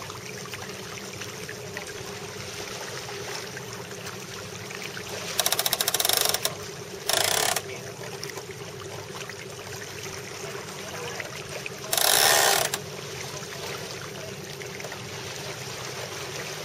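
Ratcheting sheet hardware on a Melges 24 sailboat clicking rapidly as a line is taken in, in three short bursts, the first about a second long, the others shorter. Under it a steady rush of water and wind.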